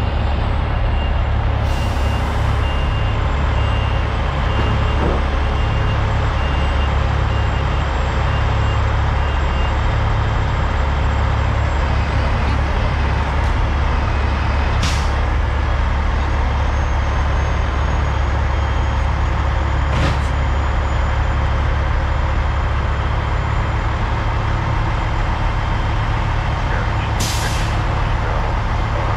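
Heavy diesel trucks and equipment running steadily, with a backup alarm beeping through roughly the first ten seconds and four short air hisses, typical of air brakes being set or released, about 2, 15, 20 and 27 seconds in.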